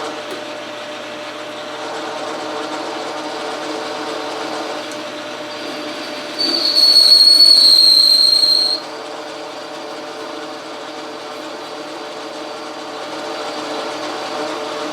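Logan metal lathe running under power feed through a turning cut, with a steady whine from its gear train. About six seconds in, a loud high-pitched squeal sounds for about two seconds, dropping slightly in pitch before it stops abruptly.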